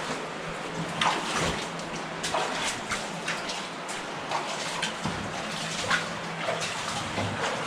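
Steady rush of flowing water from a cave stream, with short knocks scattered through it.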